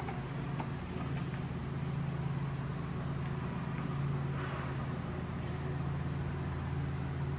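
A steady low mechanical hum, with a few faint clicks of plastic blower parts being handled and fitted.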